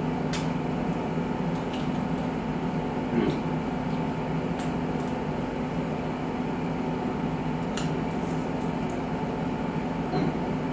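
Wet chewing and mouth sounds from eating a hot-sauced chicken wing, with scattered small clicks about every second or two, over a steady mechanical hum.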